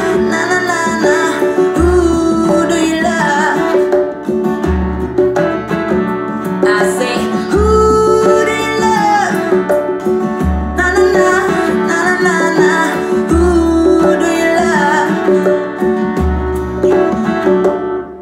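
A song with singing and guitar played back through a Kenwood hi-fi speaker system with an active super woofer, a deep bass note recurring about every three seconds.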